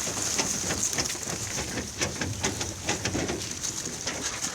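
Pigs eating feed: irregular crunching, smacking clicks of chewing.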